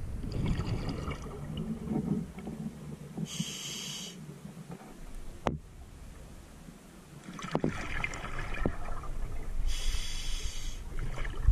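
A scuba diver breathing through a regulator, heard underwater through the camera housing: exhaled bubbles gurgling, then a short hiss of inhaling through the regulator, twice. A single sharp click comes midway.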